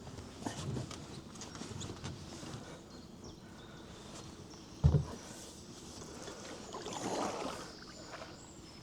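Paddle strokes dipping and pulling through the water as a cedar-strip canoe glides downstream, soft and fairly quiet, with one sharp low thump about five seconds in.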